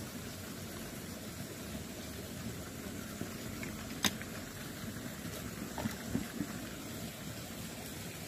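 Steady low rumbling background noise, with one sharp click about four seconds in and a few soft knocks a couple of seconds later as the handheld camera is handled.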